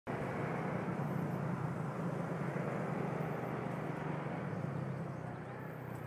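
Motorcycle on the move: a steady engine drone with wind and road rush on the microphone.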